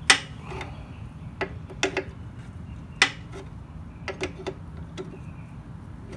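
Irregular sharp metal clicks and taps, the loudest near the start and about three seconds in, as a hydraulic hose's steel fitting is handled and fitted onto a port of a 12 V hydraulic power unit.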